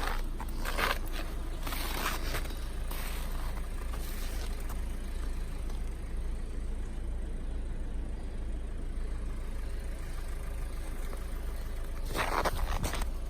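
Hyundai Creta 4WD running, heard as a steady low rumble, with brief rustling or scraping noises in the first few seconds and again near the end.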